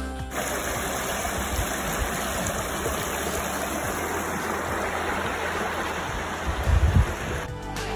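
Small rocky moorland stream running over stones: a steady rushing of water. A few low bumps come near the end.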